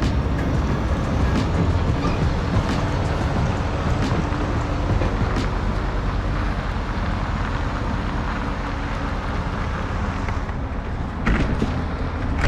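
An engine running steadily with a low rumble, with a few scattered clicks and a knock near the end.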